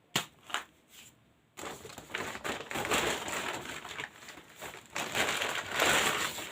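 Plastic shopping bags and grocery packaging crinkling as items are handled, starting with a few light clicks, then a continuous rustle from under two seconds in that grows louder toward the end.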